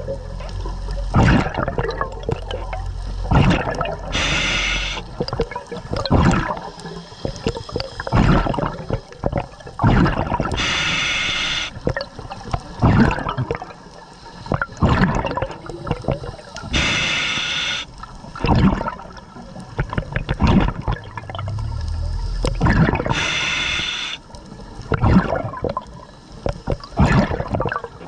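Scuba diver breathing through a regulator underwater: a hissing inhale about every six seconds, four times in all, with the bubbling rush of exhaled air between.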